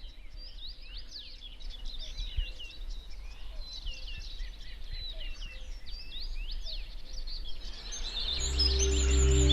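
Several small birds singing in a busy chorus of quick chirps and trills over a low rumble. Music with sustained tones and bass fades in about eight seconds in, growing louder.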